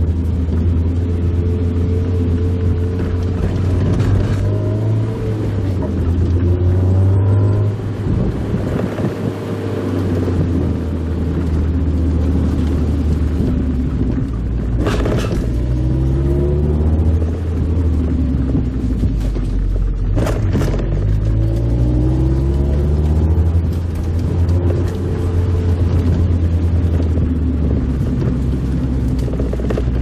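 Mazda Roadster (MX-5 Miata) four-cylinder engine heard from inside the cabin with the top down, its note repeatedly climbing under throttle and dropping off as the car is driven. A couple of sharp knocks come around the middle.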